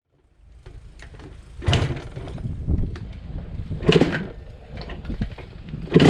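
Irregular mechanical knocks and clattering over a low rumble, with two louder clunks, about two seconds apart.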